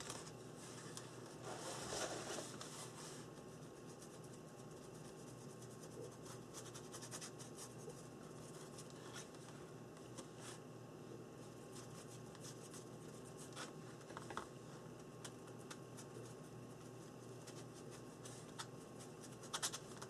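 Faint scratchy rubbing of a paintbrush working paint over a paper journal page in short, uneven strokes, a little louder about two seconds in.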